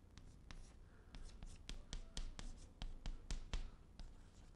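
Chalk on a chalkboard: a quick, irregular run of short taps and scrapes as Chinese characters are written stroke by stroke.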